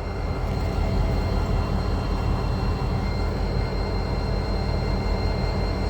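Diesel yard locomotive engine running with a steady low rumble.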